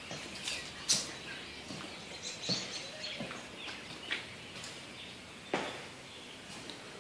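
A few soft knocks, about a second and a half apart, from footsteps and the handheld camera moving, over faint bird chirps from outside.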